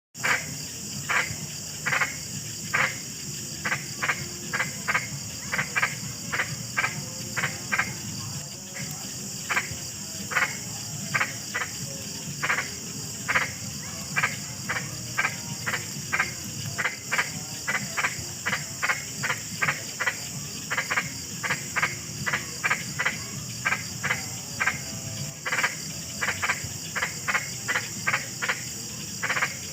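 Frogs croaking: short calls repeated about twice a second, uneven and overlapping, over a steady high hiss.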